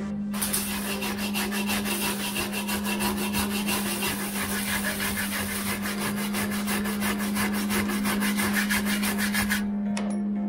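Hand wire brush scrubbed rapidly back and forth over rusty sheet steel, several strokes a second, working loose rust that has been treated with a rust-removing chemical. The scrubbing stops about a second before the end.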